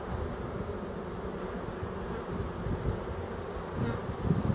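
Honeybees from an opened hive buzzing steadily, a dense, even hum of many bees.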